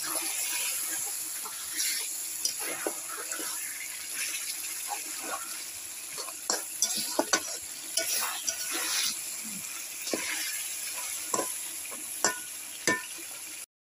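Fish heads frying in spiced oil and masala in a karai (wok-style pan), sizzling steadily, while a metal spatula stirs them, with frequent sharp scrapes and knocks against the pan. The sound cuts out briefly just before the end.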